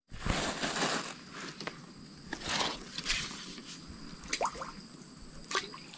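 Irregular splashes and wet handling noises close to the microphone, with a few sharp clicks, loudest in the first second.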